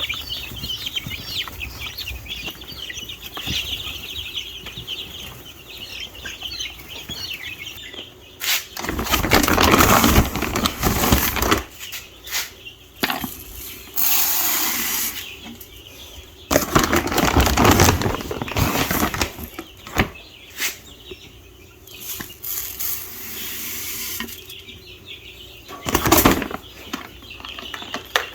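Meat-bird chicks peeping steadily in a brooder, cut across by several loud bursts of rustling noise, the strongest about nine to eleven seconds in and again around seventeen seconds in.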